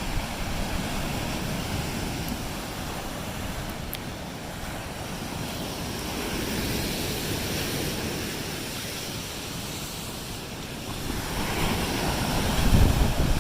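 Lake Erie waves washing onto the shore, with wind rumbling on the microphone. The surf swells louder about seven seconds in and again near the end.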